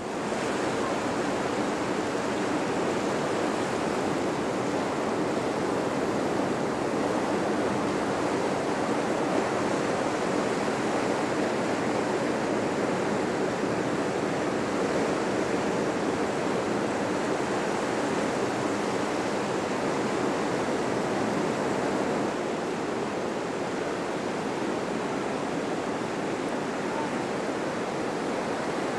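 Steady rushing noise of ocean surf breaking, even and unbroken, easing a little about three-quarters of the way through.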